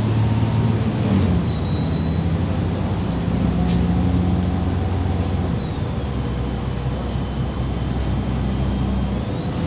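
MAZ 203.065 city bus in motion, heard from inside: a steady engine drone with a high whine that drops in pitch about a second and a half in, drops again around six seconds, and rises near the end. A single click a little under four seconds in.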